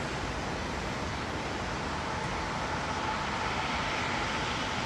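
Steady rushing airport background noise from distant aircraft engines and road traffic, growing slightly louder about three seconds in with a faint whine.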